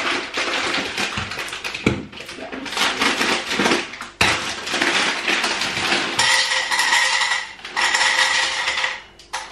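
Dry pasta being poured into a bowl on a kitchen scale, a dense rattling of small hard pieces, with a couple of sharper knocks about two and four seconds in.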